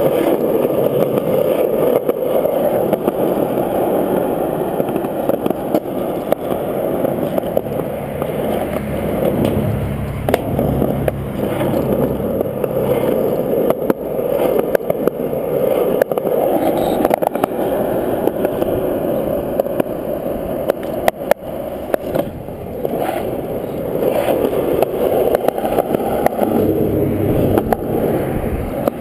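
Skateboard wheels rolling over smooth concrete: a steady rumble that swells and eases with speed, broken by a few sharp clicks.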